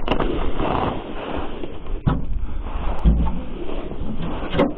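Wind buffeting the microphone, with a few knocks and scrapes of a steel-framed sheet-metal chimney cap being handled and shifted into place on a brick chimney: one near the start, one about two seconds in and one near the end.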